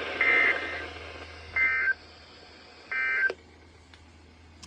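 EAS end-of-message data bursts from NOAA Weather Radio closing a Flash Flood Warning: three short warbling digital tone bursts about a second and a half apart, with a click at the end of the last one.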